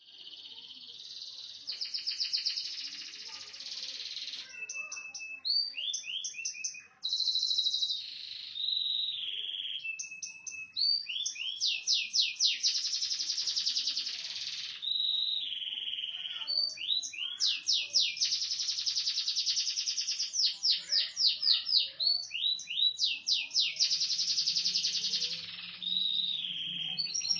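A small standard domestic canary singing a long, varied song in the 'cililin' style. It sings fast high trills and rolling series of quick notes in phrases of a few seconds, with short breaks between them.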